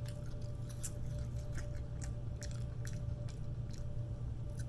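Close-up mouth sounds of a person chewing Chinese food: irregular wet clicks and smacks. A steady low hum runs underneath.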